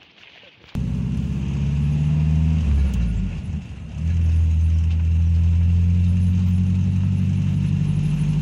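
Vehicle engine running while driving, heard from inside the cabin as a steady low hum. It starts suddenly just under a second in, dips briefly about three seconds in and then picks up again.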